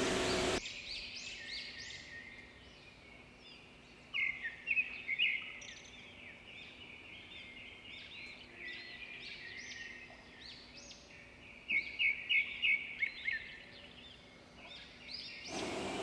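Birds chirping and calling outdoors: many short, quick calls, with louder clusters about four seconds in and again around twelve seconds.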